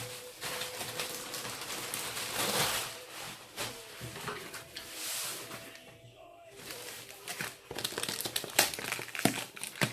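Protective packing material being unwrapped by hand: plastic wrapping crinkling and rustling in irregular handfuls, with brief tearing and sharp crackles, busiest near the end.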